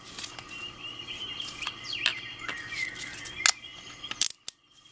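A few sharp clicks as a Magloc push-button trigger lock is handled, the loudest near the end, with birds chirping in the background.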